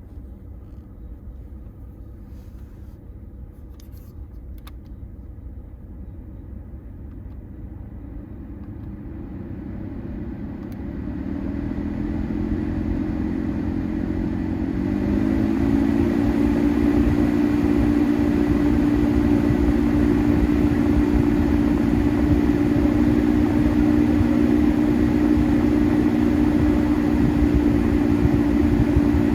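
BMW F20 M135i cabin blower fan being turned up: the air rush and a low droning hum grow louder and step up in pitch over the first half, then run steadily at high speed. The drone sounds like an engine running although the engine is off, and the owner takes it for an abnormal noise from the blower fan.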